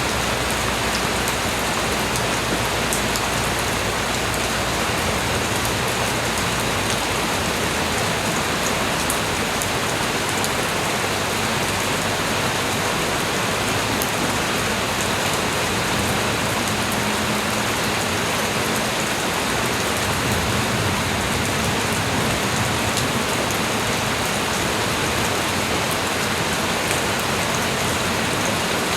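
Light rain falling steadily: an even hiss of rain on surfaces with scattered individual drops ticking through it.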